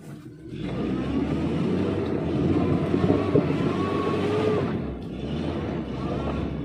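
Vehicle engine revving hard under load as it drives over a slippery mud road, heard from inside the cab. It swells about half a second in, runs loudest through the middle and eases off a little around five seconds in.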